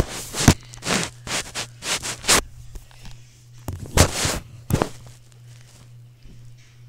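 Close rustling and scraping from a handheld phone being jostled against fabric and skin as a child moves about on a bed, with a few bumps. The bursts come thick for the first couple of seconds and again about four seconds in, over a steady low hum.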